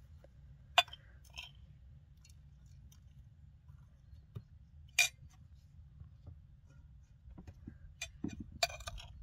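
A metal spoon clinking and scraping against a porcelain bowl while scooping out walnut stuffing for the quinces. There are a few sharp clinks: one about a second in, the loudest about five seconds in, and a quick cluster near the end.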